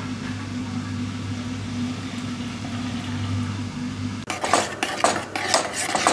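A steady low hum, then about four seconds in a spoon starts stirring strawberry sauce in an enamel saucepan, with irregular scraping and clinking against the pot.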